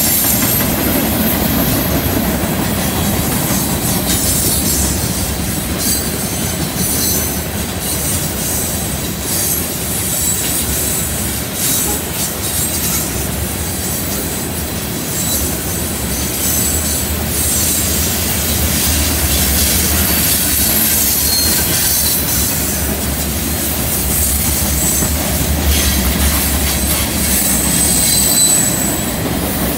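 Freight cars of a CN freight train rolling past on a curve: a steady rumble and clatter of steel wheels on rail, with high-pitched flange squeal from the wheels coming and going.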